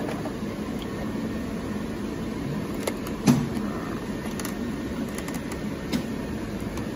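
Steady hum of packaging machinery running, with a few short clicks and one sharper knock about three seconds in.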